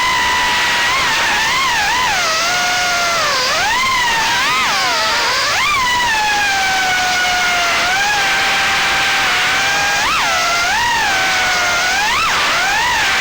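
Brushless motors of a 3-inch FPV quadcopter whining as they spin, over a steady rushing noise. The motors are GEPRC 1206 4500kv units turning Gemfan 3028 props. The pitch swings up and down with the throttle, with several sharp upward jumps.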